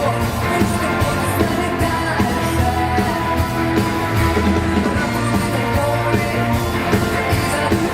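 A rock band playing a song live, with a singer over the band and a steady beat.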